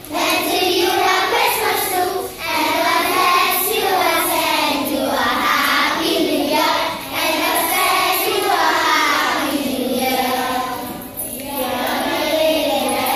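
Children's choir singing a Christmas carol, with short pauses between phrases about two, seven and eleven seconds in.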